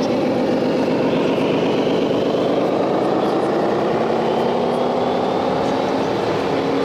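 Radio-controlled model trucks and construction machines running: a steady engine-like rumble with faint whines that slowly rise in pitch.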